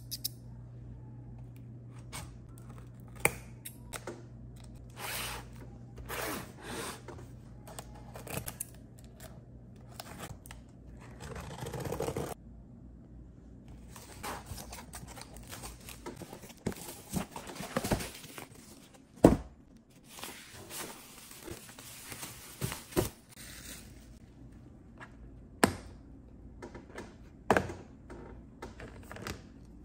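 Cardboard box being opened: a small blade slitting packing tape, tape tearing and cardboard flaps scraping open. In the second half come several sharp knocks as the plastic marker case is lifted out and handled.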